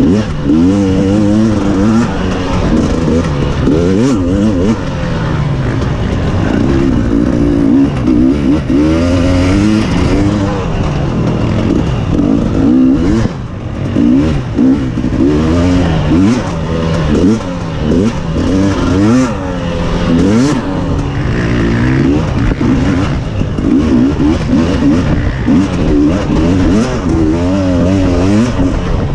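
Off-road racing engine at race pace, revving up and dropping back again and again as the rider works the throttle and shifts, the pitch rising and falling every second or two.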